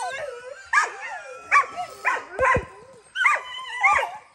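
Dogs whining and yipping in short high-pitched calls that rise and fall, about two a second, eager to be taken out for a walk.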